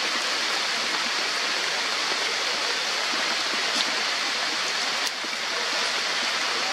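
Heavy rain falling steadily on forest foliage, an even hiss, with two brief sharp ticks about four and five seconds in.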